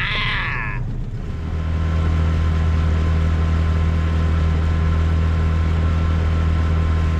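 Small outboard motor on an inflatable boat running steadily under way; it gets louder about a second and a half in, then holds an even hum. A short higher-pitched sound comes in the first second.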